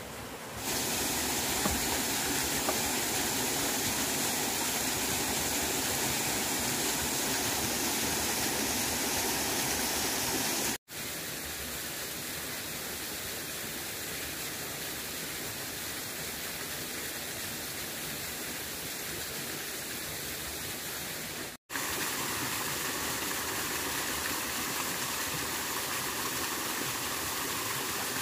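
Steady rushing noise with no pitch or rhythm, broken by two sharp cuts about 11 and 22 seconds in.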